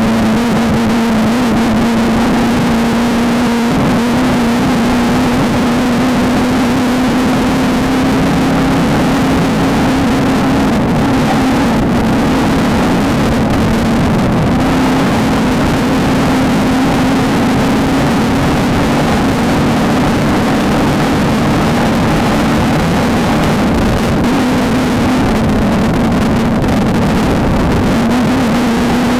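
Volkswagen Beetle desert race car at full speed, its engine held at high, near-constant revs with only slight rises and dips, over a continuous loud rush of noise.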